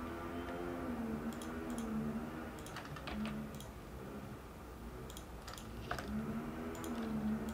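Computer mouse and keyboard clicks, scattered and irregular, as 3D models are moved and copied. A low wavering hum rises and falls underneath in stretches of about a second.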